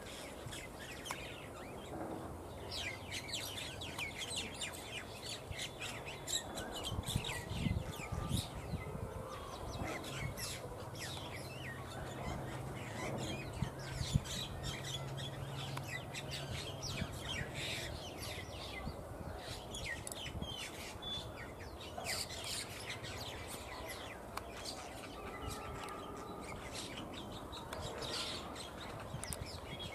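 Many small birds chirping and twittering, in rapid, overlapping high calls, with a low steady hum underneath through the middle stretch.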